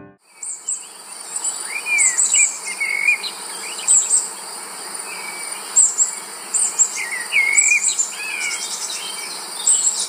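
Outdoor nature ambience: a steady chorus of insects with birds calling over it in short, repeated chirps and whistled notes that rise and fall.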